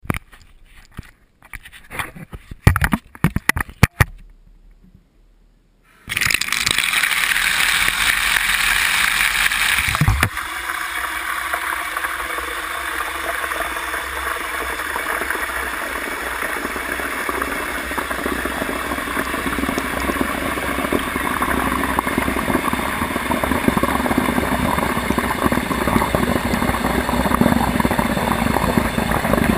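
A few clicks and knocks from handling the camera in its waterproof housing, then tap water pouring into a tub, a loud splashing rush that starts suddenly. About ten seconds in it turns duller and more muffled as the camera goes into the water, and stays a steady rush.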